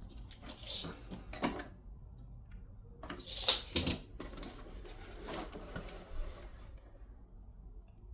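Metal clicks and knocks of a 4-inch drill press vise being handled, in several short clusters, loudest about three and a half seconds in.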